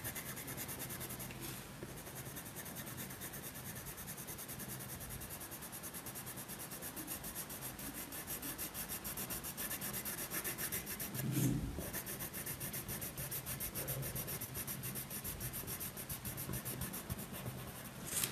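Red watercolour pencil shading on paper: quick, steady back-and-forth scratching strokes of the pencil lead as an area is coloured in. One brief, louder low sound comes about eleven seconds in.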